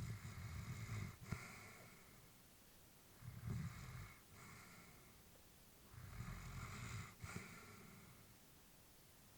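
Elderly Labrador retriever breathing with a faint snore in her sleep: three slow breaths about three seconds apart, each ending with a brief click.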